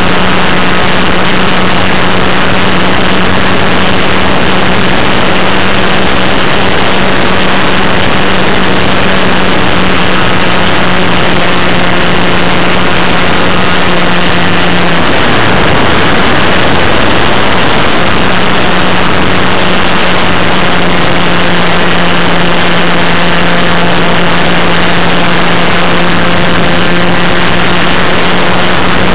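OS .40 FP two-stroke glow engine of a model plane running at a steady high pitch, very loud and harsh from a camera mounted right beside it, over a constant rush of propeller and air noise. About halfway through the pitch drops away for a few seconds, then comes back to the same steady note.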